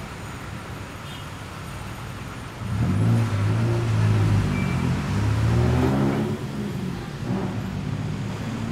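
Bus engine running and accelerating, heard from inside the bus over steady road noise. It grows loud about two and a half seconds in, and its pitch shifts about six seconds in.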